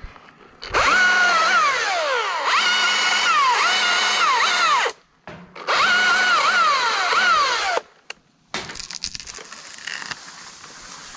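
Battery-powered chainsaw's electric motor whining in two bursts, its pitch shooting up to a steady whine and gliding back down several times as the trigger is squeezed and eased, each burst cutting off suddenly. A fainter crackling rustle follows near the end.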